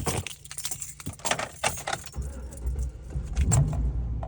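Keys jangling, then about halfway through a pickup truck's engine starts and settles into a low, steady idle to warm up.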